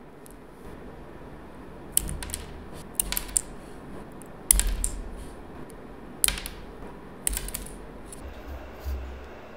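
Clear plastic nail-extension tips being popped off cured builder-gel nails with tweezers: a run of about seven sharp clicks and snaps, irregularly spaced, some with a dull knock.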